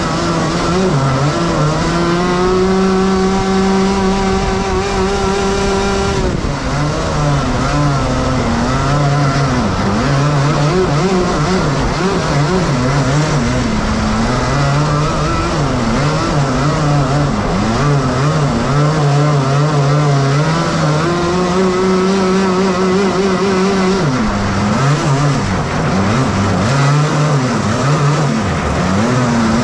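Twin Rotax Max 125 cc two-stroke kart engines heard from on board, revving up and holding a steady high pitch at full throttle, then dropping and wavering as the throttle comes off. The high steady stretches come about two to six seconds in and again about twenty-one to twenty-four seconds in.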